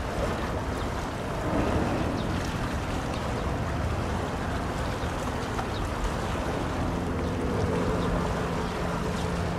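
Steady wind and water noise with the low drone of a passing bulk carrier's engine, a few steady hum tones coming up more strongly in the second half.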